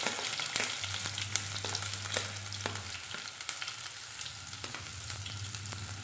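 Sliced shallots frying in hot coconut oil in a clay pot: a steady sizzle with frequent small crackles and pops, easing off a little after about three seconds.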